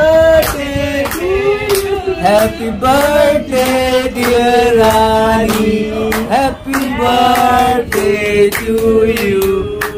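A group of men and women singing a birthday song together, clapping along in a steady beat.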